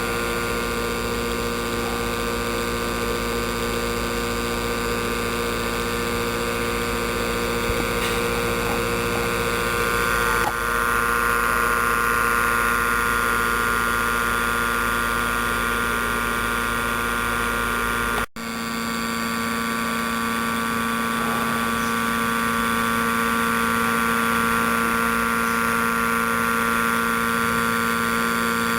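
Steady electrical or mechanical hum made of several constant tones, unchanging except for a momentary drop-out about 18 seconds in.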